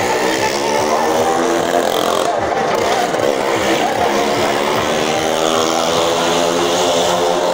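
Motorcycle engine running hard as it circles the wooden wall of a well-of-death drum, its pitch rising and falling as it goes round.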